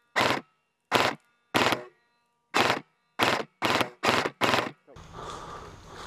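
Airsoft rifle firing single shots: three, then a short pause and five more in quicker succession. About five seconds in, a steady rustling noise of movement takes over.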